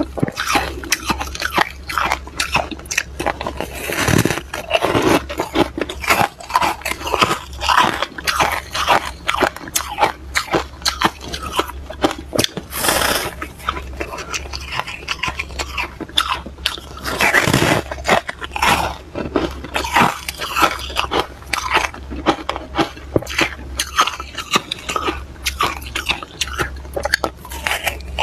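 Freezer frost being bitten and chewed close to a clip-on microphone: dense, continuous crunching of packed frost between the teeth, with a few louder bites along the way. A faint steady low hum lies underneath.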